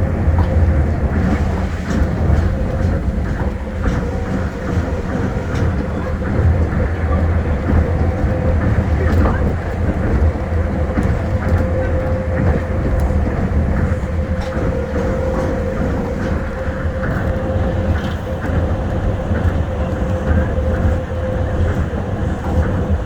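Tokyo Monorail 1000-series train running along its guideway: a steady rumble with a steady whine, and scattered light knocks.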